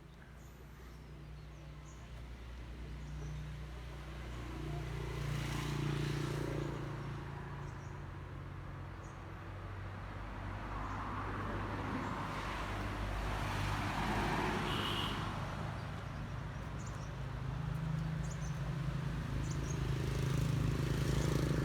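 Road traffic: vehicles passing by one after another, each swelling and fading over a few seconds, over a steady low engine hum.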